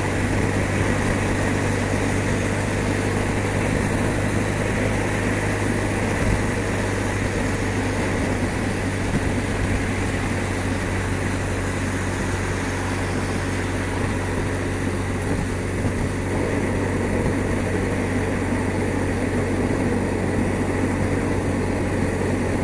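BMW R1200 RT's flat-twin boxer engine running steadily at motorway cruising speed, with a constant rush of wind and road noise.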